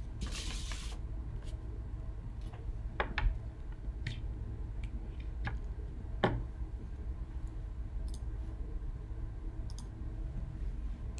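Steady low hum of room tone with a handful of faint, sharp clicks scattered through, and a short hiss about a second long at the start.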